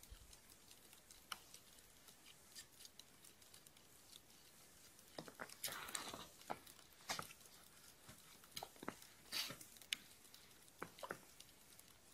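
Faint scattered clicks and crackles of a hand ice skimmer scooping slush and ice crystals out of an ice-fishing hole, with a denser patch of crackling about five to six seconds in.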